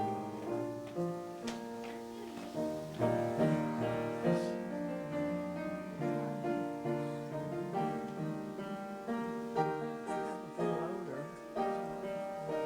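Piano music: a continuous run of struck notes and chords, each ringing and fading.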